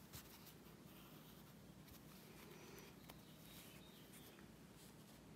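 Near silence, with faint rustling and a few light clicks from hands pulling embroidery floss through a knitted doll's head.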